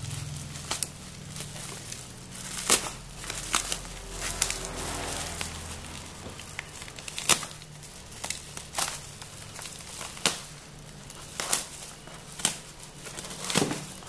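Black plastic mailer bag being slit with a snap-off utility knife and pulled apart by hand, the plastic crinkling and tearing with a series of sharp, irregular crackles.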